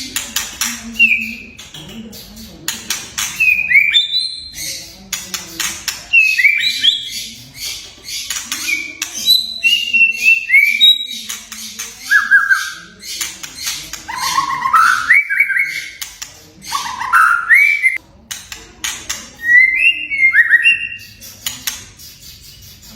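White-rumped shama (murai batu) singing: phrases of clear whistled notes that slide up and down, mixed with quick dry clicking and crackling notes.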